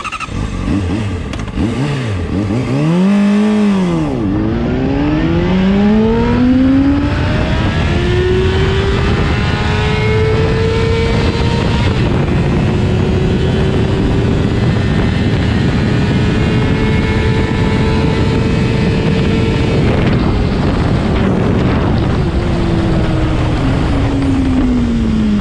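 Honda CBR600RR inline-four engine running through a Yoshimura exhaust as the bike pulls away from a stop, the note rising and dropping with each upshift in the first several seconds. It then holds a steady high cruise and falls away near the end as the bike slows, with wind rush underneath.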